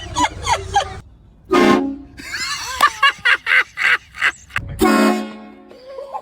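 Novelty car horn sounded in a string of honks: a burst of quick short toots, a loud held blast, a rapid run of short wavering notes, then another loud blast.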